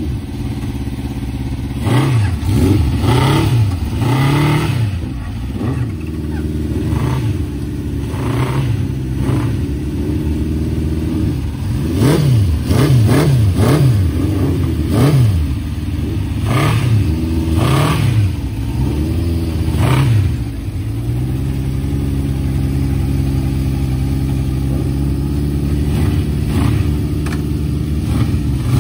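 Honda CB750 Four motorcycles' air-cooled inline-four engines running through aftermarket exhaust mufflers, with the throttle blipped again and again so each rev rises and falls sharply. From about two seconds in to about twenty seconds the revs come in quick bursts, after which the engines settle to a steady idle.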